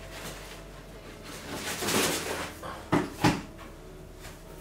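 Cardboard shoe box being pushed aside and set down: a scraping rustle swells about two seconds in, then two sharp knocks follow close together.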